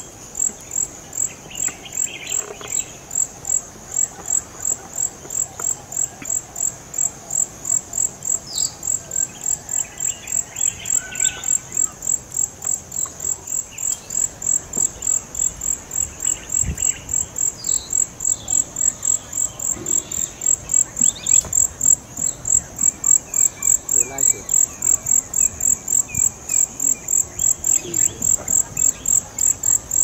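A cricket-like insect calls in a steady run of high-pitched pulses, about two to three a second, with faint scattered bird calls behind it in the forest.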